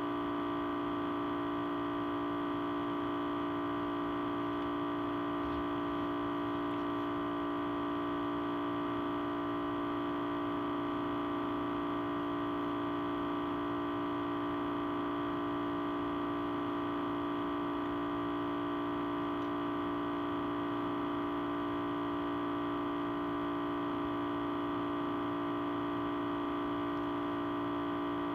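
Audio feedback: a steady, unchanging tone, strongest in the low-mids, with many fainter steady tones stacked above it.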